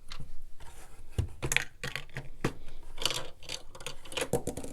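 Plastic LEGO bricks and parts clicking and clattering as the built house set is handled, an irregular run of small sharp clicks.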